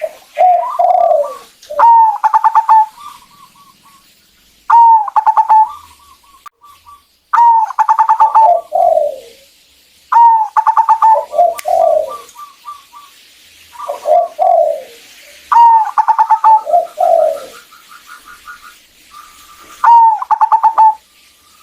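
Zebra doves (perkutut) cooing: about eight loud phrases a few seconds apart, each a stuttering run of quick notes with a lower falling coo.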